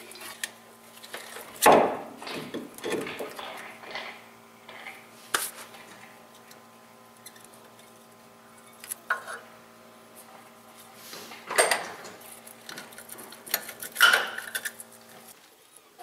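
Metal clinks and clanks of brake parts being handled as the old front brake pads and clips are worked off the caliper bracket, with several louder knocks. A faint steady hum underneath stops shortly before the end.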